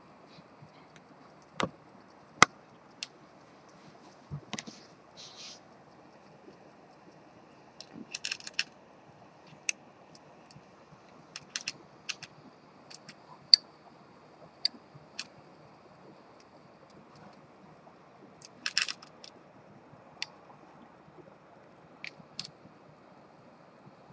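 Sharp metallic clicks and two short clattering rattles, scattered at irregular times, from an antique pocket watch and its hinged silver case being handled.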